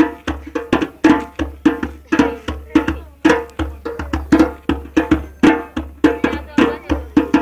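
Tam-tam hand drums played in a fast, driving dance rhythm, about four sharp strokes a second with ringing tones.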